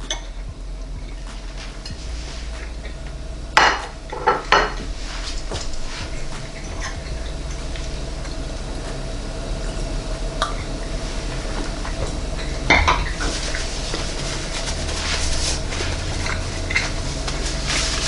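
The Breville Combi Wave's cooling fan running steadily with a faint hum while the oven cools down after cooking. A few sharp clinks and knocks stand out about three and a half to five seconds in, and once more near thirteen seconds.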